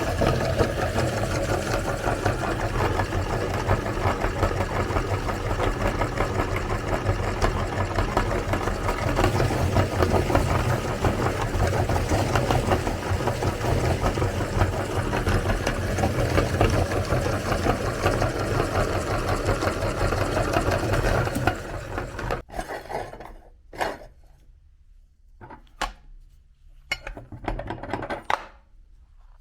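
Electric meat grinder running steadily as it grinds cookies, then cutting off suddenly about 22 seconds in, followed by a few short knocks.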